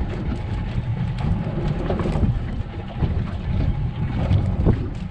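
Wind buffeting the microphone on an open fishing boat at sea: a heavy, steady low rumble, with a few light knocks scattered through it.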